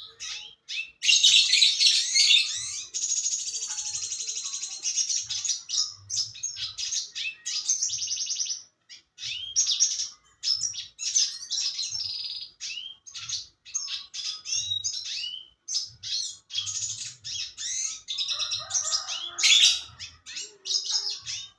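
Red siskin singing almost without pause: fast, high twittering phrases with rapid trills and quick rising and falling notes.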